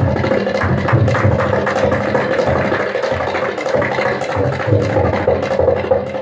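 Solo tabla played fast: a dense run of rapid strokes on the dayan (right-hand treble drum) ringing at its tuned pitch, with deep bass strokes from the bayan (left-hand bass drum) recurring throughout.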